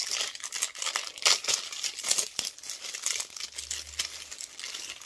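Plastic wrapper crinkling as a rolled pie crust is unwrapped by hand, in quick irregular crackles.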